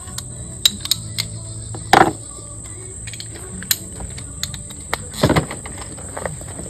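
Scattered clicks and clanks of hand tools and metal parts being handled, two of them louder, about two seconds in and past five seconds, over a steady high-pitched insect drone and a low hum.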